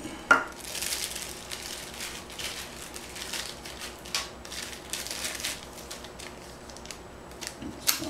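Rummaging through small computer hardware and loose screws: scattered clicks, clinks and rustling of small metal and plastic parts, with one sharp click about a third of a second in.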